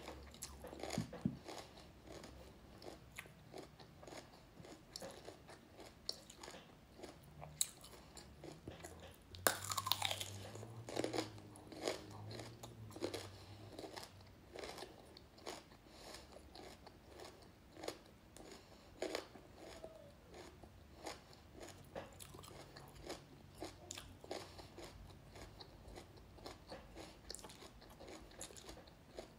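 Raw red radishes being bitten and chewed: a long run of crisp, irregular crunches, a little louder about ten seconds in.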